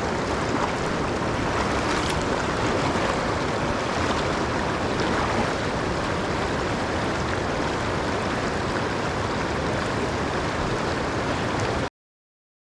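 Steady rushing of river water flowing past, an even noise that cuts off abruptly to dead silence near the end.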